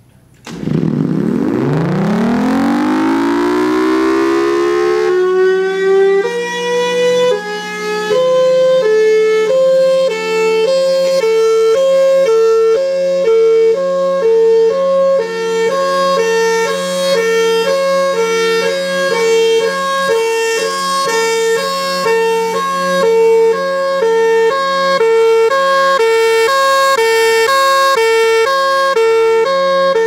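Federal Signal Thunderbolt 1003 outdoor warning siren starting up from rest. It winds up in pitch over about five seconds, then settles into its Hi-Lo signal: two tones switching back and forth about twice a second. A steady low hum runs underneath.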